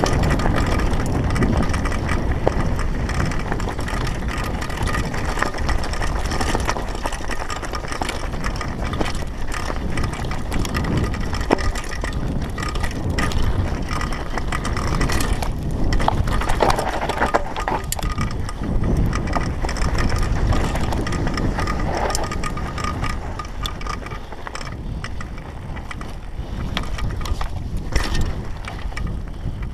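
Downhill mountain bike riding fast down a loose dirt and gravel trail: wind rushing over the microphone and tyre noise, with constant clicks and rattles from the bike over rocks and bumps. It eases off a little near the end.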